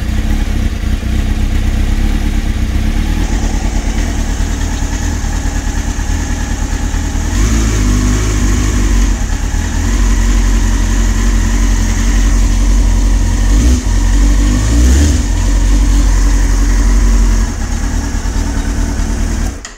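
2003 Kawasaki ZX-6R 636 cc inline-four idling on the choke from a cold start, running on a swapped-in KRT race ECU. It runs steadily, gets louder about seven seconds in, and cuts off suddenly near the end.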